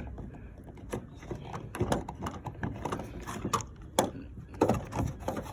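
Irregular light clicks and knocks as a fuel filler door lock actuator is worked out of its mounting by hand.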